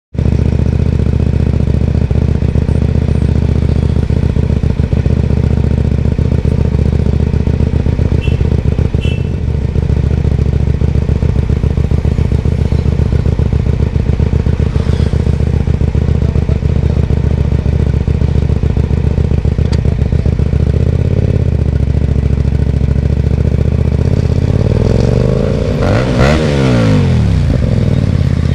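Hyosung GT250R's V-twin running steadily through a loud Ixxile Racing aftermarket exhaust. Near the end the pitch rises and falls once.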